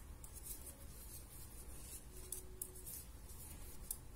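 Two knitting needles working thick fringed yarn by hand: faint, irregular clicks and scrapes of the needles, with the yarn rubbing through the fingers.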